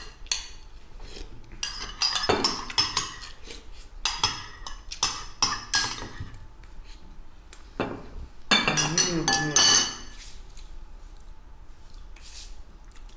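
Metal spoons clinking and scraping against ceramic soup bowls and plates as the last of the soup is eaten, in a run of sharp clinks. A short burst of a person's voice comes about nine seconds in.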